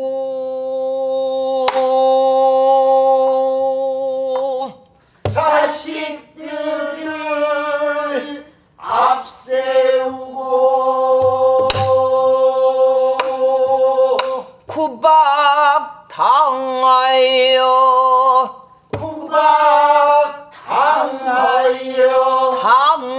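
Pansori singing: a woman sings long, wavering held notes of a lament in five drawn-out phrases with short breaks between them. A buk barrel drum is struck sparsely with a stick, a handful of times.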